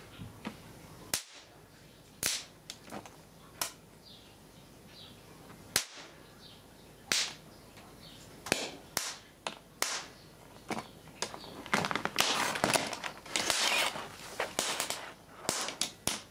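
Sharp electrical snaps from a capacitor bank being discharged through an electrode into an integrated circuit, sparking at each contact. They come singly every second or so at first, then run together into fast crackling near the end as the chip's front blows off.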